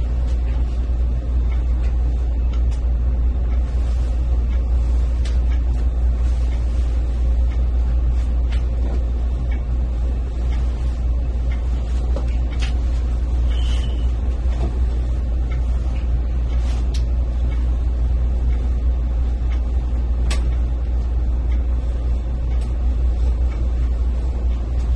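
Steady low rumble throughout, with faint scattered rustles and ticks from bed linen being handled.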